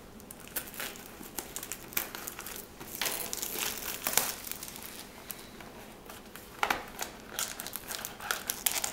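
Trading cards and their pack packaging being handled: irregular crinkling and rustling with many small clicks, louder in bursts.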